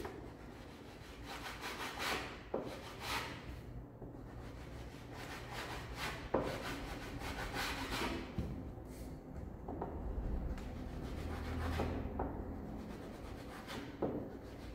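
Raw edge of a scrap MDF block rubbed in repeated strokes along the edge-banding tape of a black MDF panel, scraping off the leftover tape lip and rounding it smooth.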